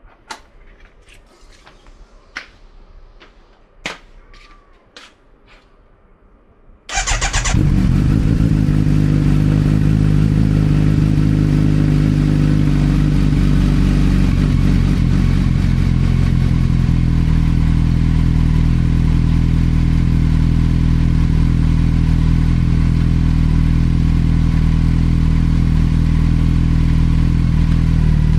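A few light clicks, then about seven seconds in the 2025 Kawasaki Z900 SE's inline-four engine cranks, catches and settles into a steady idle. This is its first start after a fresh oil and filter change.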